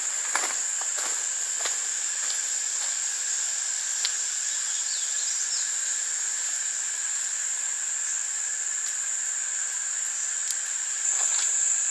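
Steady chorus of insects, a continuous high buzz with a fainter lower band under it. In the first couple of seconds a few footsteps on the trail fade as the walker moves off, and the buzz grows louder near the end.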